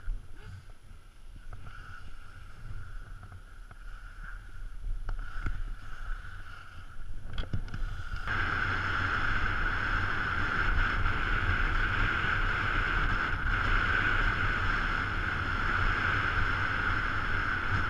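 Wind rushing over the action camera's microphone together with the hiss of skis gliding and carving on hard-packed snow during a fast downhill run. It gets clearly louder about eight seconds in and stays loud.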